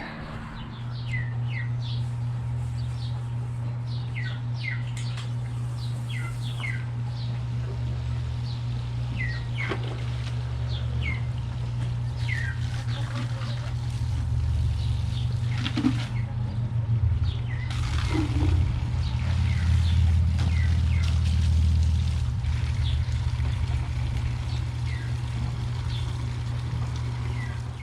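A steady low motor hum, louder for a few seconds about two-thirds of the way through, with many short chirps of birds over it.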